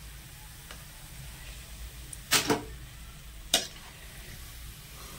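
A utensil clinks against the frying pan as fried corn kebabs are lifted out of the hot oil: a quick double clink a little over two seconds in, and one more about a second later.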